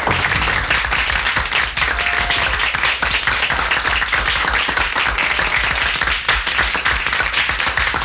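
Studio audience applauding, a dense, steady clapping that holds through the whole stretch.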